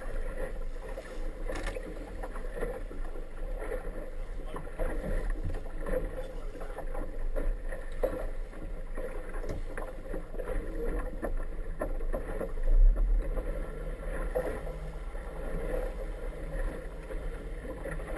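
Inflatable boat under way through choppy water: a steady rush of water and wind with a low rumble, and scattered knocks of the hull meeting the chop. One louder bump comes about thirteen seconds in.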